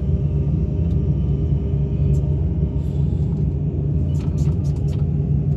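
Excavator's diesel engine running steadily under the controls, with a few light clicks about four to five seconds in.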